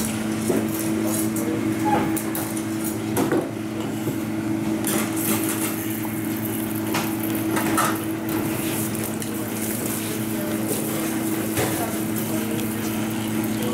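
Metal trays and pans clattering in a busy commercial bakery kitchen over a steady low machine hum. Water hisses from a hose spray nozzle onto the wooden bagel boards.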